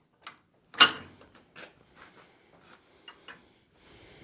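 Metal clicks and knocks as a small part is set in a brass filing vise and the post vise holding it is tightened by its handle, with one sharp clank just under a second in and lighter ticks after.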